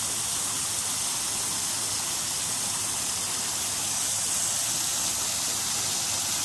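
Steady, even hissing rush of background noise with no distinct events.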